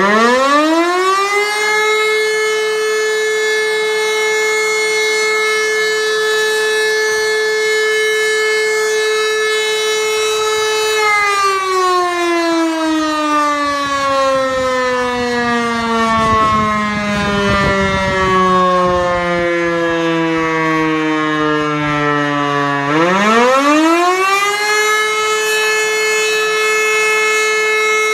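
Fire brigade alarm siren sounding a test alarm. It winds up to a steady wail and holds it about nine seconds, then winds slowly down for about twelve seconds, and winds up to the steady wail again near the end.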